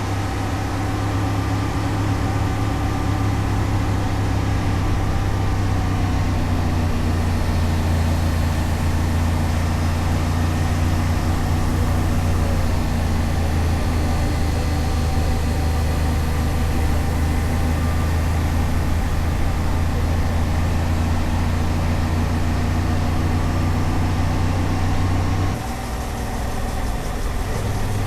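Honda XL750 Transalp's parallel-twin engine running steadily under the riders. Its note changes about six seconds in and drops briefly near the end.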